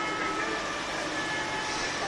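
Floodwater rushing steadily: an even, unbroken rushing noise from a river in flood and water running across the road.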